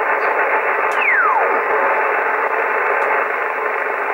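Yaesu FT-840 transceiver's speaker giving steady 11-metre band hiss on upper sideband as the VFO dial is turned up the band. About a second in, a whistle sweeps quickly down in pitch: a carrier's heterodyne passing through as the tuning crosses it.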